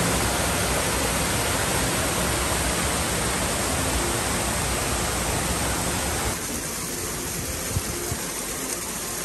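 Small mountain-creek waterfall rushing steadily over rocks. The rush turns a little softer about six seconds in.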